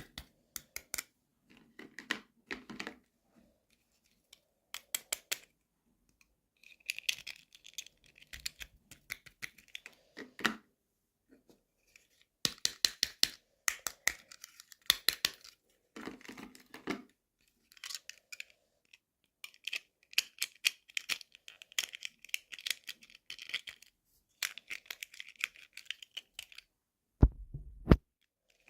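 Toy packaging being unwrapped by hand: plastic crinkling and tearing, with many small clicks and taps as pieces are handled, in bursts with short pauses between them. One loud low thump comes near the end.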